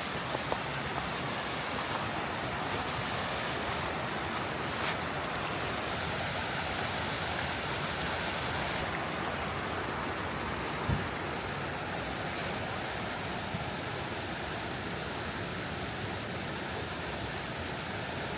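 A creek rushing steadily, as an even wash of water noise, with one short knock about eleven seconds in.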